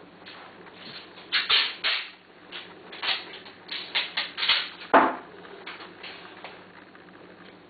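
A cloth being picked up, shaken and laid down: a run of short rustling swishes, the loudest about five seconds in, then softer rustles as it settles.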